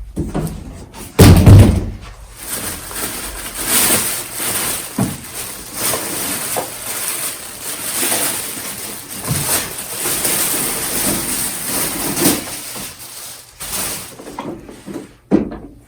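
Handling of a boxed vacuum cleaner's hard plastic parts and packaging: one heavy thump about a second in, then steady rustling and crinkling with scattered knocks of plastic against plastic.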